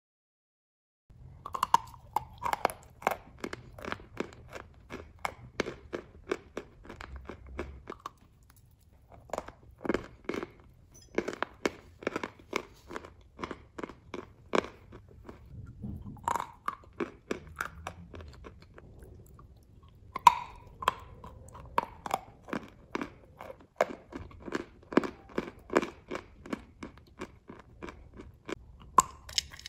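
Close-up crunching and chewing of dry lumps of white chalk, bitten off and ground between the teeth as rapid crackly crunches in bursts with brief pauses. It starts about a second in.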